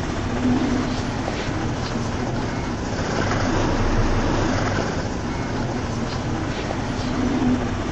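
Steady urban traffic noise, a continuous rumble that swells briefly about halfway through.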